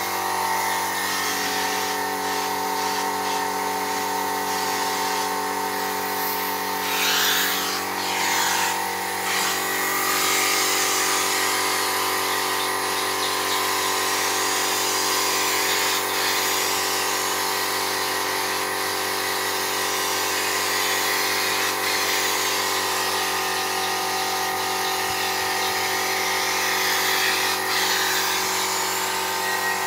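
Steady motor hum of an air compressor under the continuous hiss of an old siphon-feed spray gun spraying car paint.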